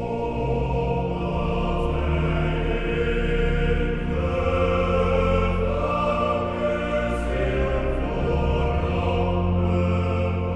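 Large mixed choir singing a psalm in held chords, over a steady low accompaniment from a brass band.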